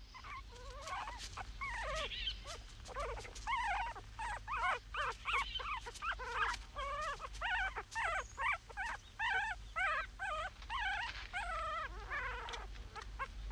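Wolf pups whimpering and squealing in the den: a rapid run of short, high, wavering whines, about two a second.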